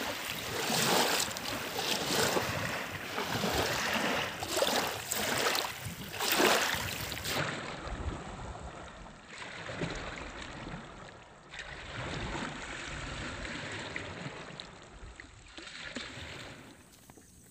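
Small wind-driven waves lapping and breaking on a muddy reservoir shore, washing in irregular surges that grow quieter after about seven seconds.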